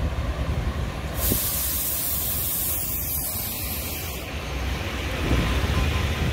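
Red diesel shunting locomotive running as it draws a rake of sleeping cars past along the platform, with a low rumble of engine and wheels. A hiss of air starts about a second in and stops about three seconds later.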